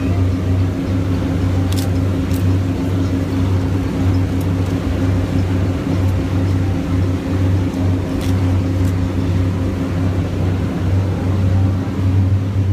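Motor yacht's engines droning steadily with the boat under way at speed: a deep constant hum with a second steady tone above it, over a continuous rushing noise.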